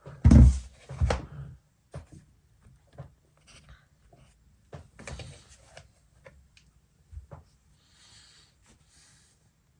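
An aluminium laptop being handled on a desk: a heavy thump just after the start and a second one about a second in, then light knocks, clicks and rustles.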